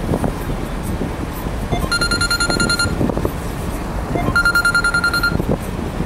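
Steady rumble of road and traffic noise from a moving vehicle, cut through twice by a vehicle horn: two steady, high-pitched honks of about a second each, the first about two seconds in and the second a little past four seconds.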